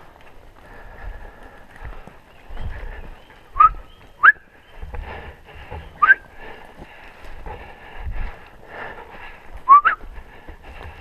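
Five short, sharp rising whistles: two about three and a half and four seconds in, one about six seconds in, and a quick pair near the ten-second mark, over faint rustling.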